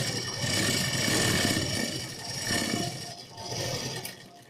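Electric sewing machine running as it stitches fabric, slowing and picking up speed a couple of times before stopping near the end.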